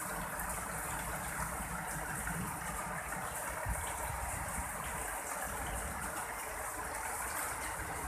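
Heavy rain pouring steadily in strong wind, with an uneven low rumble from the wind under the even hiss of the rain.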